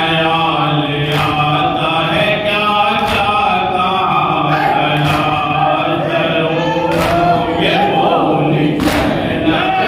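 A group of men chanting a noha, a Shia lament, together, with sharp slaps of hands striking chests (matam) every second or two.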